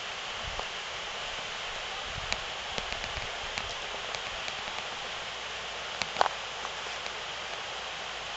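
Footsteps along a woodland trail: irregular light crunches and clicks, the loudest pair about six seconds in, over a steady rushing hiss.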